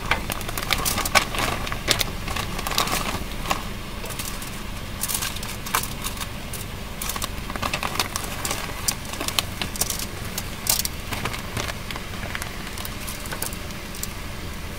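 A plastic zip-top bag being handled and shredded cabbage being tipped and spread onto fish and mushrooms on foil: irregular crinkling and rustling, with a steady low hum underneath.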